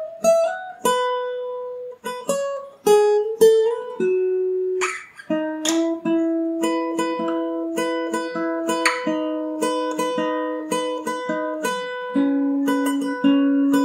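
Acoustic guitar with a capo high on the neck, picking a melody note by note, with a couple of slides up in the first few seconds. From about five seconds in it settles into a repeated picked figure over a held lower note.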